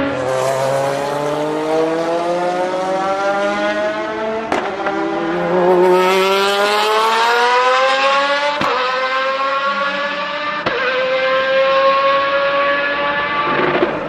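Lamborghini Murciélago R-SV GT1 race car's V12 accelerating hard past and away, its pitch climbing through the gears with three quick upshifts, about four and a half, eight and a half and ten and a half seconds in.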